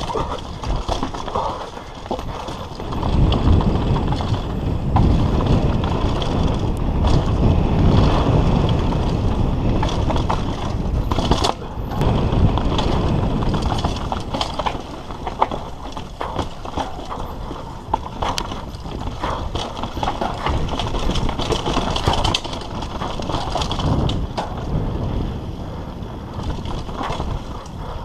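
Giant Reign X mountain bike ridden fast down a rocky trail: tyres crunching over dirt and stone with a constant clatter and knock of the bike's parts, under a heavy rumble of wind on the helmet camera's microphone.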